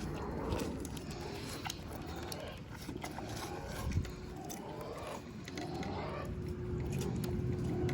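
Farm animals chewing watermelon: scattered small wet clicks and crunches, with a single thump about four seconds in.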